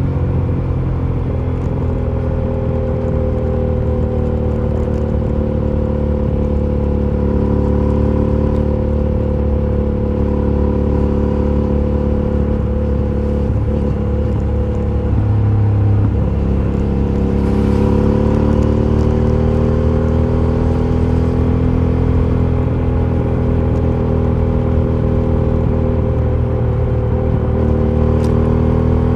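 Aprilia Shiver 750's 90-degree V-twin engine running through its stock exhaust at fairly steady revs; the engine note dips slightly around halfway, then rises again and gets a little louder.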